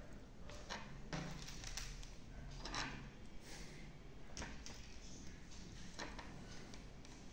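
Faint, irregular clicks and scrapes of jumper wires being handled and pushed into a plastic breadboard, about six over the span.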